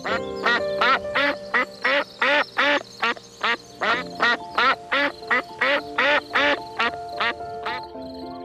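A rapid run of about twenty short animal calls, about three a second, stopping near the end, over background music.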